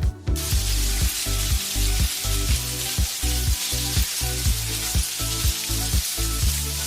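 A steady crackling hiss, with low steady tones underneath that break off and resume in a rough rhythm.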